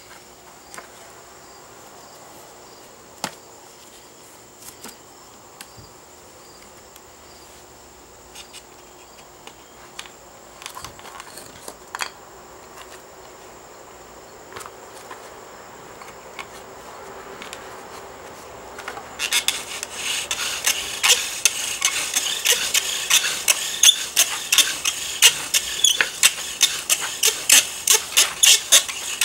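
Wooden bow drill at work: the spindle rubbing in the scorched socket of a wooden fireboard as the bow is sawn back and forth, a quick, even rasping of about two strokes a second that starts about two-thirds of the way in. Before that, only a few light knocks of wood as the drill is set up.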